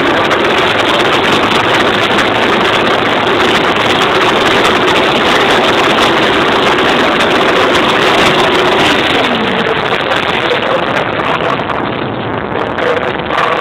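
Many motorcycle engines revving together in a loud, continuous din, with one engine's pitch falling away about nine seconds in and the whole din easing slightly near the end.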